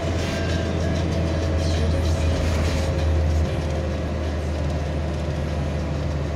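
Steady road and engine rumble heard from inside the cab of a vehicle driving on a highway, with a faint steady whine over it. The low rumble eases slightly about three and a half seconds in.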